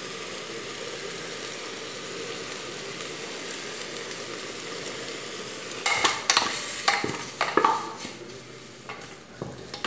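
Chicken pieces sizzling steadily as they brown in a pressure-cooker pot. From about six seconds in come several sharp scraping clatters as the pot is shaken on the stove grate to coat the chicken with the seasoning.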